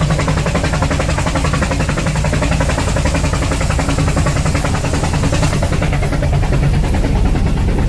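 Rack-railway steam locomotive puffing steadily, with a fast, even beat of exhaust beats over the low running rumble of the train.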